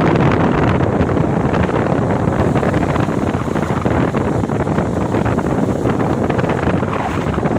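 Ocean surf on a beach, a steady loud rush of waves, with wind buffeting the microphone.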